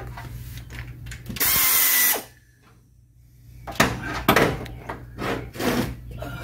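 A handheld power tool runs in one short burst of under a second. After a pause come several sharp clicks and knocks.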